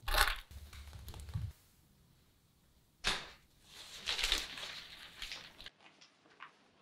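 A bunch of keys set down on a table with a clink. About three seconds in a sudden rustle starts, and a newspaper rustles as it is handled for a couple of seconds.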